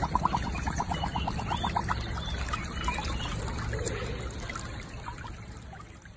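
Water trickling and sloshing around a husky lying in a shallow muddy puddle, with a quick even run of short ticks, about seven a second, in the first two seconds. The sound fades out near the end.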